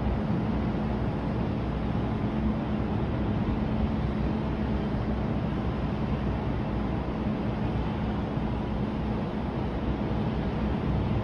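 Steady outdoor city ambience: an even low rumble with a faint steady hum running under it, unchanging throughout.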